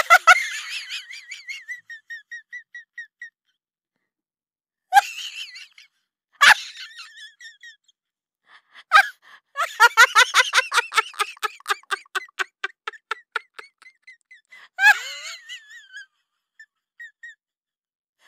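Several fits of high-pitched laughter and squealing. Two of them break into quick, rhythmic ha-ha pulses that fade away, and short squeals come in between.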